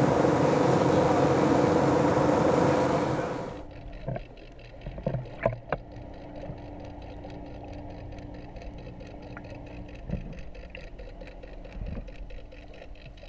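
Steady rushing noise of a sportfishing boat and the sea on deck, which cuts off after about three and a half seconds. It gives way to the muffled sound of an underwater camera: a low steady hum with scattered clicks and knocks.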